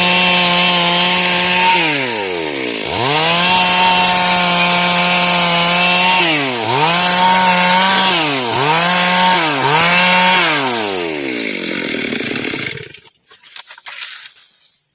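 Stihl MS 382 two-stroke chainsaw running at full throttle while cutting dry wood. The throttle is let off and opened again several times, briefly dropping the engine's pitch, before the saw falls to idle and is switched off near the end.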